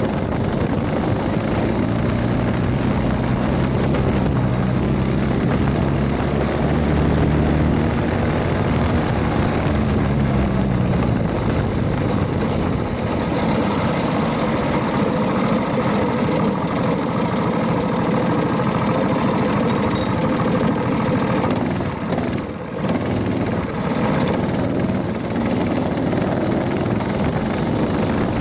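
Predator 212 single-cylinder engine of a mini bike running under load. Its pitch climbs over the first dozen seconds and then holds higher, and it briefly drops off about 22 seconds in before picking back up.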